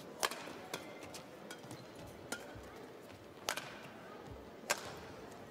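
Badminton rally: rackets striking the shuttlecock with sharp cracks about once every second or so, five strokes in all, with fainter clicks of footwork on the court between them.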